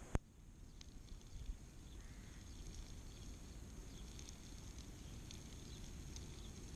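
One short, sharp knock right at the start, then a low, steady outdoor background with faint, scattered high ticks.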